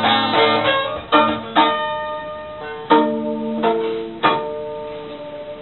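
Background music played on a plucked string instrument: notes and chords struck about once a second, each ringing and fading away, dying down near the end.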